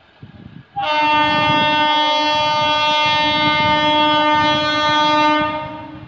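An Indian Railways WAP-4 electric locomotive's horn sounding one long, steady blast. It starts about a second in, lasts about four and a half seconds, and then fades.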